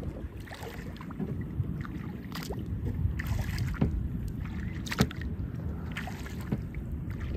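Kayak being paddled across choppy, turbulent water: splashing and scattered sharp knocks, one louder about five seconds in, over a steady low rumble.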